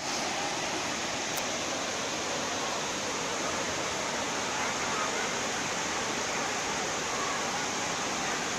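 Steady, dense rush of Tinago Falls' water pouring down.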